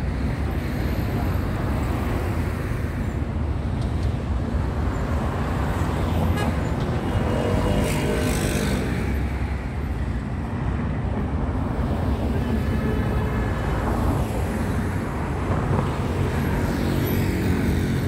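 Steady city street traffic: the rumble of cars and engines going by, with a vehicle passing close and swelling louder about eight seconds in.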